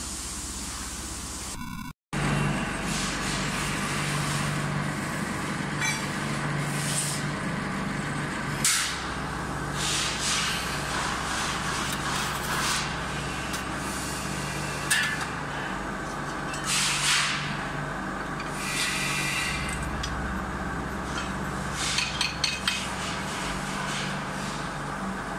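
Steady workshop machinery hum, with repeated short hissing surges as silica sand is poured from a scoop into moulding boxes, and a few sharp clinks near the end. The sound cuts out briefly about two seconds in.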